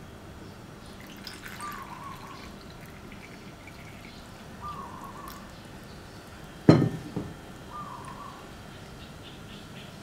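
Water poured from a glass into a plastic sachet of soba dipping sauce, and the diluted sauce squeezed out of the sachet into a ceramic bowl, with a single sharp knock about two-thirds of the way through. A bird's short call repeats three times in the background, about every three seconds.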